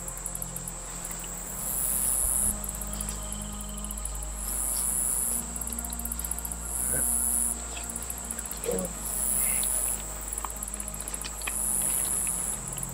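A chorus of night insects chirring in a high pitch, alternating rapid pulsed trills with short continuous buzzes that repeat every two seconds or so.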